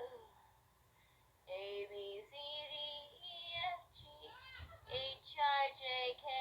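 A woman's high-pitched singing voice: a run of short, steadily held notes with small breaks, starting about a second and a half in.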